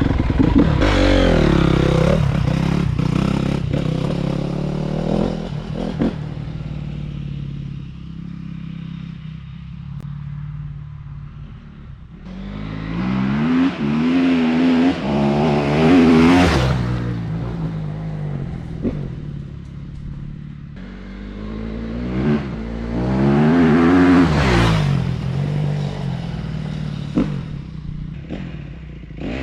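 Honda CRF250R dirt bike's single-cylinder four-stroke engine at full throttle, pulling away and fading, then passing close by twice, loudest about halfway and again about three-quarters through, its pitch rising and falling with the throttle.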